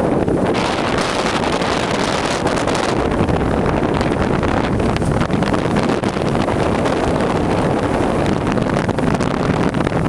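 Strong wind buffeting the microphone, a steady heavy rumble with no break.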